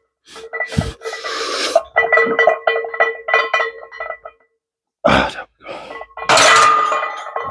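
Background music with a quick beat, broken by several loud hissing bursts; the loudest comes about six and a half seconds in.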